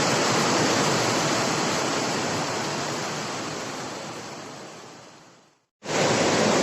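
River in flood rushing steadily. The rush fades out over a few seconds to a brief silence, then cuts straight back in.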